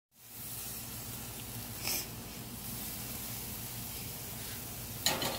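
Steaks sizzling on a gas grill's grates: a steady hiss over a low hum, with two short, louder hissing bursts, one about two seconds in and one near the end.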